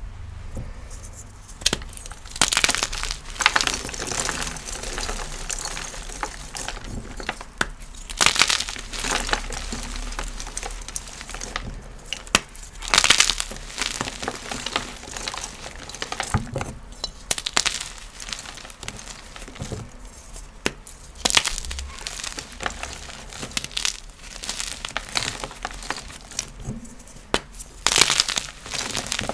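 Blocks of Easy Grip gymnastics chalk being crushed, crunching and crackling as they crumble into powder. The crunches come in repeated loud bursts a few seconds apart, with quieter crumbling in between.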